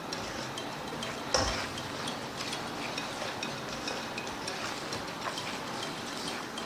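Ground chilli, shallot, garlic and shrimp-paste spice paste sizzling and spitting with many small pops in a hot wok, stirred and scraped with a spatula, with one sharper knock of the spatula on the wok about a second and a half in.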